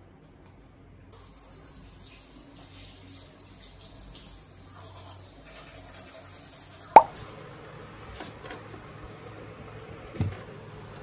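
Kitchen handling sounds while rice is packed into a food container: a steady hiss like running water for about six seconds, then a sharp knock and a duller knock about three seconds later.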